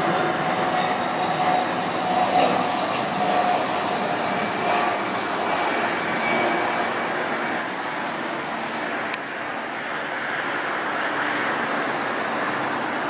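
Airbus A300 freighter's twin turbofan engines on low final approach: a steady rumbling roar with a thin whine, the whine fading about halfway through and the whole sound easing off a little as the jet moves away toward touchdown.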